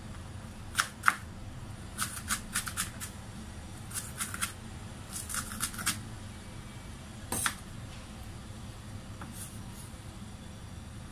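Kitchen knife chopping onion on a wooden cutting board: sharp taps of the blade striking the board, in quick runs of a few strokes with short pauses between and a last lone stroke past the middle, over a steady low hum.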